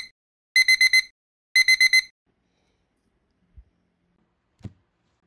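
Smartphone alarm beeping in quick groups of four, about once a second, stopping about two seconds in; two faint soft knocks follow.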